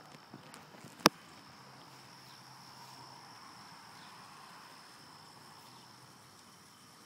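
Insects trilling steadily at one high pitch, with a single loud, sharp crack about a second in.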